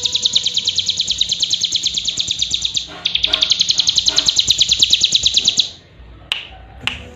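Cigun songbird singing a rapid, high, buzzy trill of about a dozen notes a second that stops about two-thirds of the way in, followed by a couple of faint clicks.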